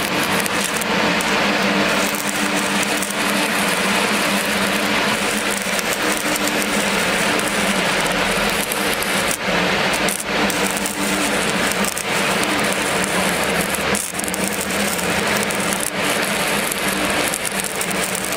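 Electric arc welding: a steady, dense hiss and crackle over a low hum, dropping out briefly a few times.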